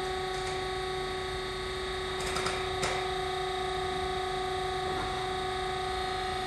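Brown & Sharpe 618 Micromaster surface grinder running under hydraulic table travel: a steady machine hum with a fixed pitch, and a few light clicks between two and three seconds in.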